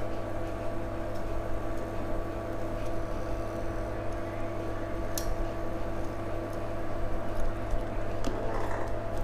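Steady electrical hum with a few fixed tones above it, from a bench DC power supply feeding current into a shorted phone motherboard to burn out the short.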